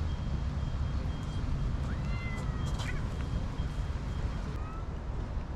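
Stray cats meowing, a few drawn-out calls about two to three seconds in and another near the end, over a steady low rumble. A faint high-pitched tone pulses on and off in the background.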